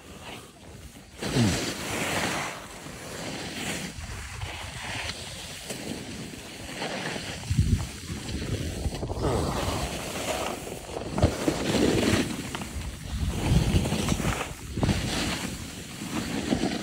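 Skis sliding and scraping on packed snow during turns, with wind buffeting the phone's microphone. The rush swells and fades in repeated surges every second or two.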